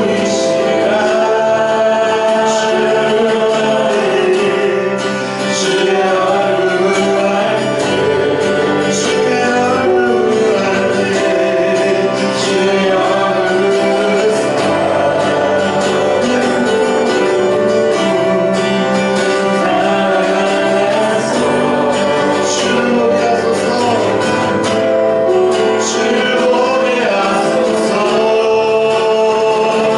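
Church praise team singing a Korean worship song with instrumental accompaniment; the music runs on steadily.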